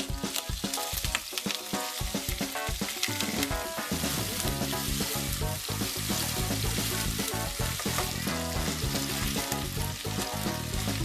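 Chicken thigh pieces sizzling steadily in hot olive oil in a nonstick wok, turned now and then with tongs. Background music with a bass line plays under the sizzle.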